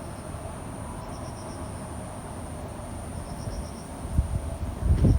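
Insects chirping at night: a steady thin high buzz with short bursts of about four or five quick pulses every second or two. Low rumbling comes in near the end.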